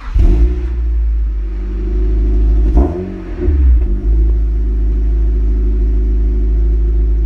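Car engine running loudly close to the microphone, with a brief rise and fall in revs about three seconds in.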